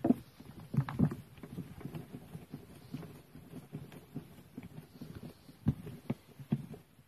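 Irregular knocks, taps and light clatter of tools and metal and plastic parts being handled, with a few sharper knocks about a second in and again near the end.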